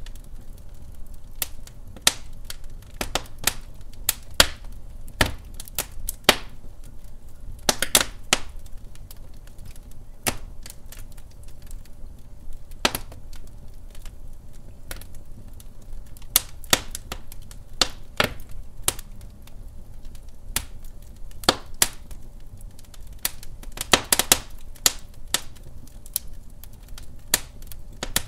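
Wood fire burning in a fireplace: irregular sharp crackles and pops from the burning log over a low rumble, with small clusters of pops about 8 seconds in and near the 24-second mark.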